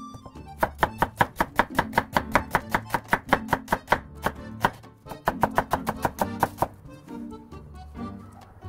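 Kitchen knife slicing an onion into thin strips on a wooden cutting board: quick, even chops about five a second, with a short pause midway, stopping about seven seconds in. Background music plays underneath.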